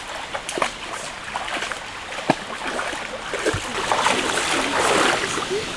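Water sloshing and splashing as someone wades through a shallow stream, with scattered sharp snaps and crackles of twigs and dry leaves underfoot. It grows louder about four seconds in.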